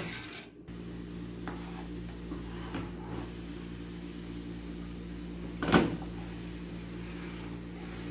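A steady low hum with several held tones, with a few light scrapes of a plastic spatula stirring tamarind chutney in a nonstick frying pan and one sharp knock of the spatula against the pan a little past the middle.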